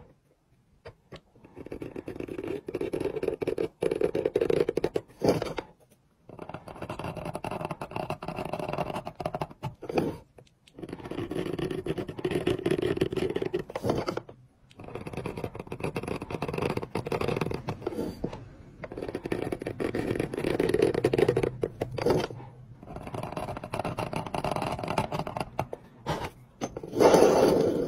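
Seal-carving knife scraping and crunching across a stone seal face as it cuts the grid lines, in runs of a few seconds with short pauses between, ending in a louder scrape.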